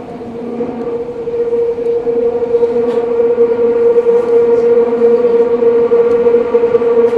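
Eidan 03 series subway car's VVVF inverter and traction motors whining, heard from inside the passenger car. A steady high tone with a lower hum beneath it grows louder over the first couple of seconds, then holds.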